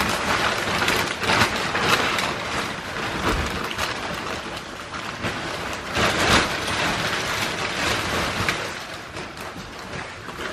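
Thick plastic wrapping on a couch section crinkling and rustling as the piece is handled and carried, with a couple of dull thumps.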